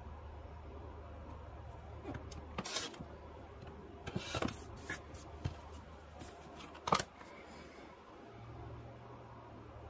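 Quiet trimming of quilt fabric: a rotary cutter drawn along an acrylic ruler on a cutting mat, a few short crisp cuts with the taps and slides of the ruler and fabric being repositioned between them, over a low steady hum.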